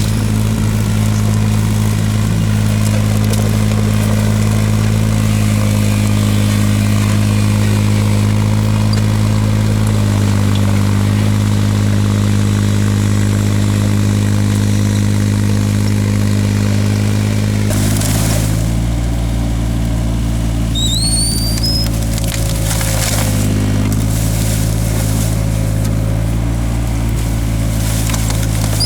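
Takeuchi TB016 mini excavator's engine running steadily, its note shifting about ten seconds in and again a few seconds later. In the second half there are several sharp knocks.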